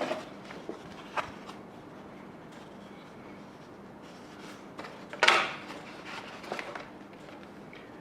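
Handling of packaged model-plane parts: a light knock about a second in, a brief louder rustle or scrape about five seconds in, then a couple of soft taps.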